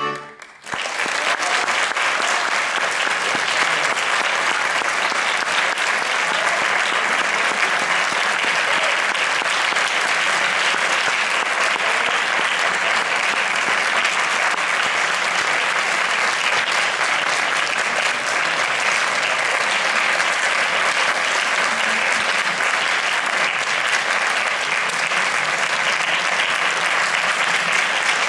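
Audience applause, starting about half a second in just after the accordion stops and holding steady.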